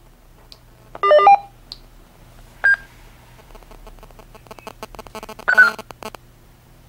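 Hytera PD782 DMR handheld radios sounding their electronic call tones during a private call. A quick run of stepped beeps comes about a second in, then a single short beep. A patter of clicks follows, and a brief burst of tones near the end as the call ends.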